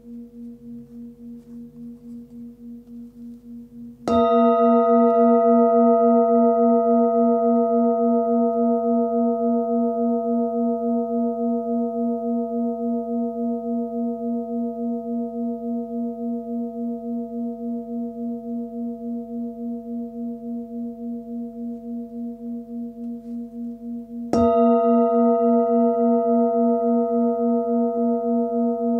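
A 19 cm Nepalese singing bowl pitched at about 236 Hz (A#), struck twice: once about four seconds in and again near the end. Each strike rings out in a long, slowly fading tone with a steady wobble, over the still-fading ring of the earlier strike.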